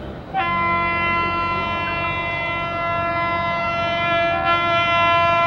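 Electric locomotive's air horn blowing one long, steady note that starts about half a second in, over the low rumble of the approaching train.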